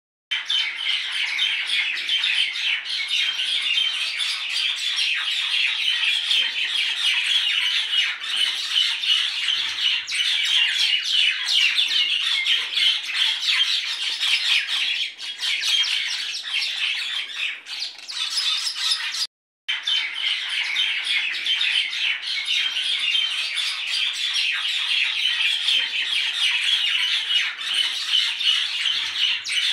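Dense chorus of many small birds chirping and squawking at once, a continuous busy chatter. It breaks off for an instant about twenty seconds in.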